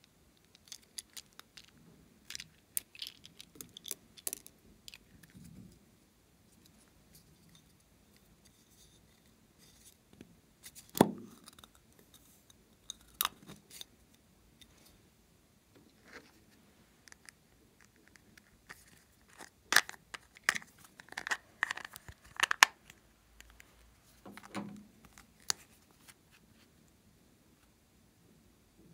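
Small plastic toy containers being handled and opened by hand: scattered clicks, taps and scrapes of plastic lids and caps. A louder knock comes about a third of the way in, and a quick run of sharp clicks about two-thirds through.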